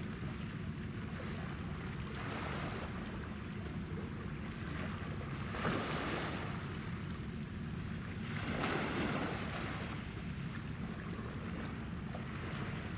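Wind buffeting the microphone over a steady low rumble, with small waves washing in soft swells every couple of seconds.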